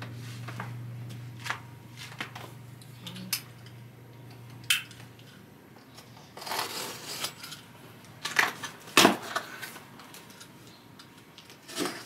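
Small cardboard shipping box being handled and its packing tape picked at and peeled off, giving scratching and rustling noises with a few sharp clicks, loudest about two-thirds of the way through.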